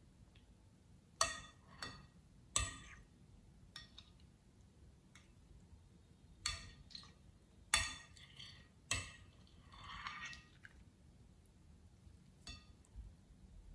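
Thick wet slime being stirred and lifted in a glass bowl with a small spatula, giving sharp sticky clicks and squelches at irregular intervals, with a longer wet squish about ten seconds in.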